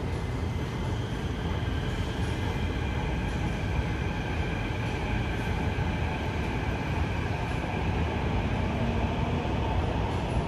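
Singapore MRT train running, heard from inside the carriage: a steady rumble of wheels on rail with a faint high whine.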